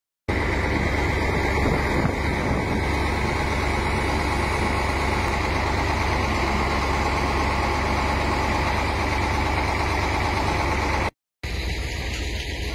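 Heavy truck engine running steadily with a deep, even rumble. The sound cuts out briefly about eleven seconds in, then resumes slightly quieter.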